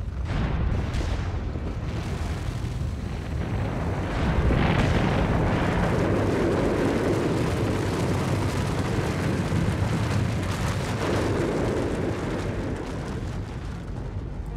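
Sound effect of a volcanic eruption: a deep, noisy rumble with a rushing hiss over it. It swells about four seconds in and again about eleven seconds in.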